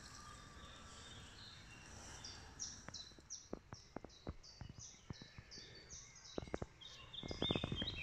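A songbird singing a long run of short, high, repeated notes, about two to three a second, over the quiet of the forest. Twigs and dry leaves crackle underfoot, with scattered clicks and a louder burst of crackling near the end.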